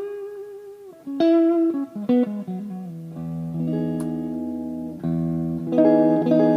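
Greco WS-STD electric guitar played clean. A held note fades and drops in pitch, two short picked notes follow, then full chords ring out about halfway through and again near the end.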